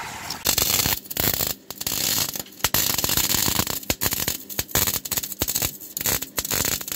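Electric arc welding on a 4x4's exhaust pipe: a loud, continuous crackle of the arc that breaks off briefly and restarts several times. This is the cracked weld at the exhaust flange being welded back up.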